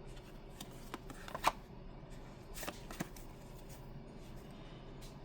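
Pokémon trading cards being handled and slid through the hands, with quiet rustling and a few short, sharp ticks.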